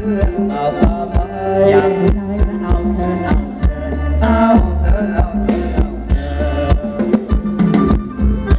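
Live Thai ramwong band playing an instrumental passage: a steady drum beat under sustained notes and a bass line.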